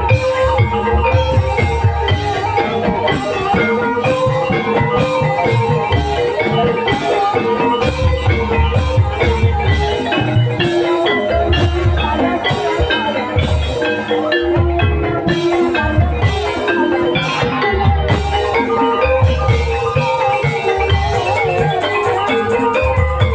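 Javanese gamelan music of the kind that accompanies jaranan trance dancing: metallophones play a busy, repeating melody over steady drum beats.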